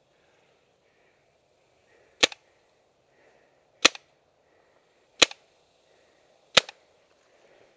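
Tippmann TiPX paintball pistol firing four single shots, evenly spaced about a second and a half apart, each a sharp pop.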